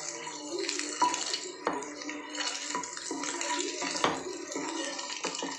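Boiled eggs frying in oil in a nonstick kadai: a steady sizzle. A spatula knocks and scrapes against the pan a few times as the eggs are rolled, most sharply about four seconds in.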